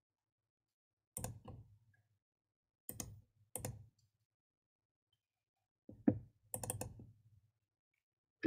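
Computer mouse clicking, single clicks and quick double-clicks in three short groups with silence between.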